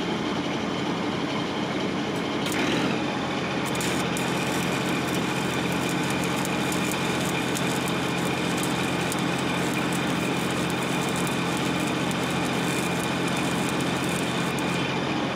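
Arc welding along a crack in a steel combine axle housing: a steady crackle of the arc starts about four seconds in and runs on. Under it is a constant engine drone.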